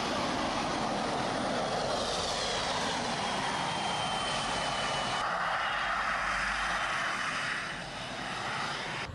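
T-80BV tank's gas turbine engine running as the tank drives, a steady jet-like rush with a high thin whine that sinks slightly in pitch.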